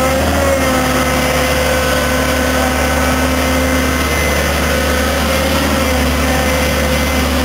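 Fiat Hitachi EX165 tracked excavator's diesel engine running steadily while the machine works, with a constant whine over the engine note.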